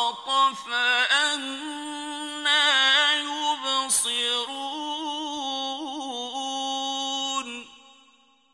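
A man reciting the Qur'an in the melodic mujawwad style, drawing out long ornamented notes with a wavering vibrato. The final held note trails off near the end and fades out.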